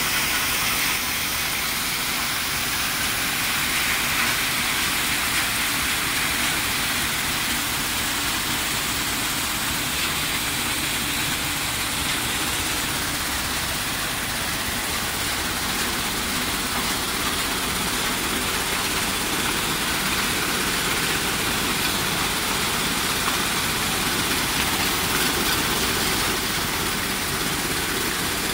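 Sand washing plant in operation: steady, even machinery noise from its bucket-wheel sand washer, vibrating dewatering screen and belt conveyors carrying wet sand and gravel.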